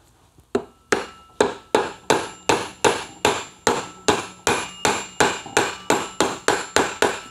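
Mallet blows tapping a tight-fitting tool into the clutch hub of an Aermacchi 350 motorcycle engine. The light taps come steadily at about three a second, each with a faint metallic ring.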